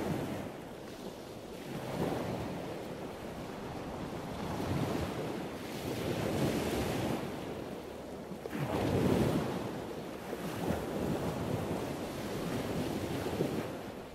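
Wind rushing over the microphone, a steady noise that swells and eases in gusts every few seconds.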